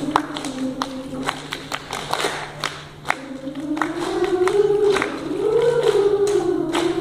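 Children's choir singing in unison, with sharp hand claps and pats keeping time over the sustained sung line, which rises in the second half.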